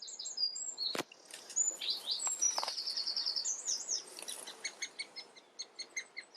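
Woodland birds singing and calling, several songs overlapping, with a rapid trill near the middle. A single sharp click comes about a second in, and in the second half a bird gives short calls, about three a second.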